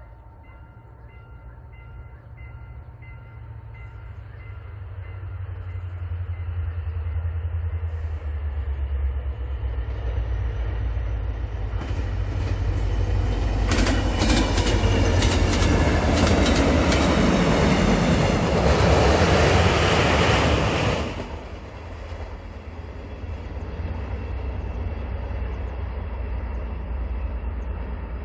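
Korail diesel locomotive hauling a short Mugunghwa passenger train, approaching with a growing engine drone and passing close by. The wheels clack rapidly over rail joints as it goes by. The sound drops off suddenly about 21 seconds in, then a lower rumble holds as the train moves away.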